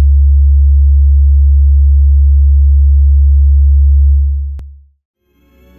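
Loud, steady low sine test tone under colour bars, fading out about four seconds in. A single click follows, then soft ambient music begins to fade in near the end.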